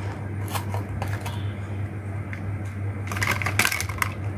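Hollow plastic toy fruit pieces clicking and knocking together as they are handled, with a few separate clicks early and a quick clattering run of knocks about three seconds in. A steady low hum runs underneath.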